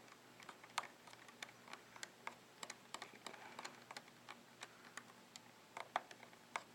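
Small screwdriver turning a tiny screw into a MacBook Pro's case: a run of faint, irregular light clicks, a few a second.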